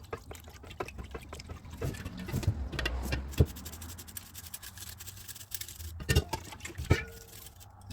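Scattered light clicks and scrapes of small metal parts as a rusted, seized car door latch is soaked with penetrating oil and handled, with a couple of sharper clicks near the end.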